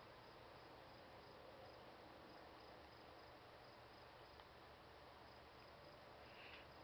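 Faint cricket chirping: short chirps repeating at an even pace over a quiet steady hiss, with a brief faint sound near the end.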